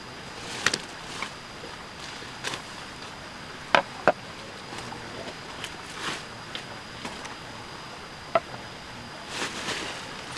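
Scattered knocks and clicks of objects being handled in and around a plastic basket on a split-bamboo platform, the loudest a close pair about four seconds in. Under them runs a steady hiss with a faint, thin high tone.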